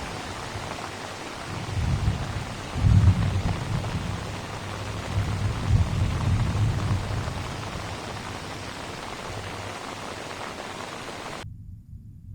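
Heavy monsoon rain falling steadily as an even hiss, with deep low rumbles swelling and fading between about two and seven seconds in. The rain cuts off abruptly near the end.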